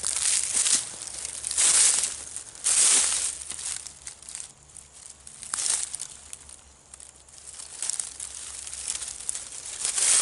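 Footsteps crunching and rustling through dry leaves and brush, in uneven swells with a quieter stretch midway.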